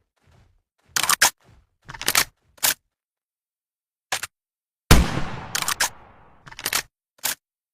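Makeshift shotgun sound effect: several sharp mechanical clicks and clacks, then one loud bang about five seconds in that dies away over more than a second, followed by a few more clicks.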